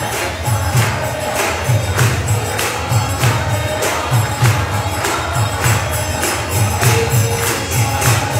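Devotional kirtan: voices singing a chant over a fast, steady beat of jingling brass hand cymbals (kartals) and a deep hand drum.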